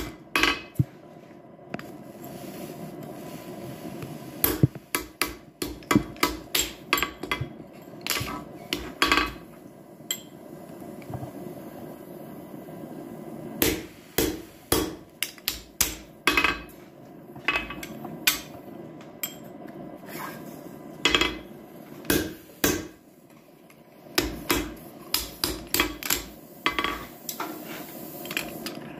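Hammer blows driving a punch through steel to punch a hole for a handle, struck in bursts of quick, sharp blows with short pauses between them. A steady low hum runs underneath.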